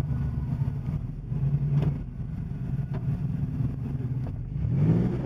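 4x4 SUV engine running from inside the cab as it crawls through trail mud, with a couple of sharp knocks from bumps about two and three seconds in. The engine revs up, rising in pitch, near the end.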